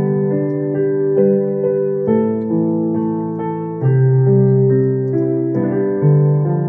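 Electronic keyboard playing a slow song melody over held electric-piano chords, with a new chord struck about every two seconds.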